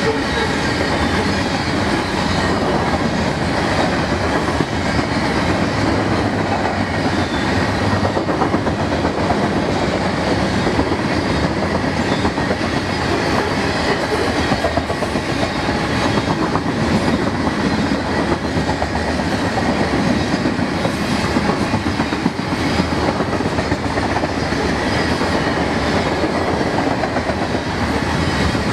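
Freight train of covered hopper cars rolling past at close range: a steady, loud rumble and clatter of steel wheels on rail.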